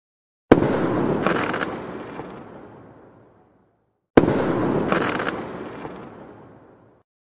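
An end-screen sound effect plays twice. Each time it is a sudden bang that fades out over about three seconds, the first about half a second in and the second about four seconds in.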